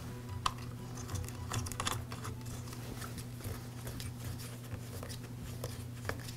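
Plastic air filter cover of an Echo SRM-225 trimmer being turned and pressed back onto the engine by hand: faint, scattered plastic clicks and rubbing, with a sharper click about half a second in.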